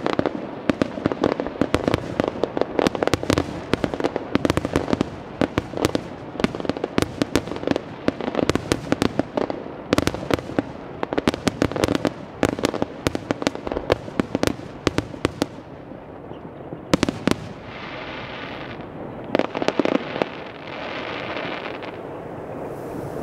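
Fireworks finale: a rapid, dense barrage of shell bangs and crackle, thinning out after about sixteen seconds to a few last reports, with a softer hissing noise near the end.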